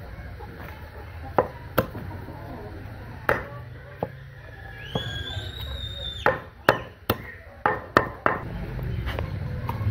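Heavy cleaver chopping a whole fish on a cutting surface, about a dozen sharp, uneven blows that come faster in the second half.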